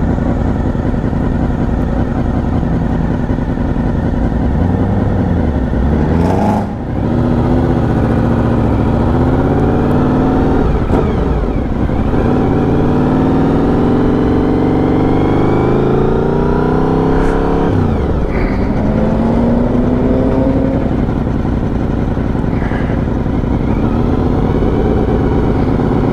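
Honda VFR750 (RC36 Interceptor) V4 engine heard from the rider's seat, accelerating through the gears. Its pitch climbs and drops back at two gear changes, then holds steady at a cruise.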